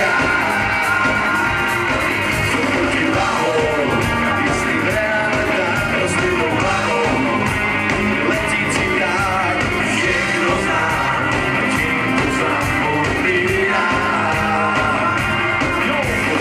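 A band playing live through a PA with male voices singing over a steady drum beat and electric guitars.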